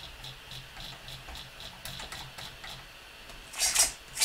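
Quick series of short, high beeps, about three to four a second, from an RC transmitter's steering trim being stepped to centre the servo, over a faint steady hum. A brief louder rustle comes near the end.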